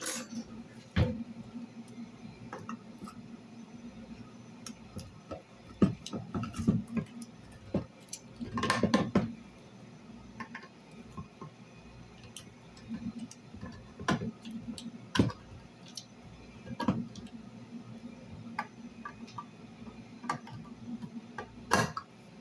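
Irregular clicking and metal knocks from a hand can opener being worked on a can of green beans that will not open easily, with a louder clatter about nine seconds in and again near the end, over a faint steady low hum.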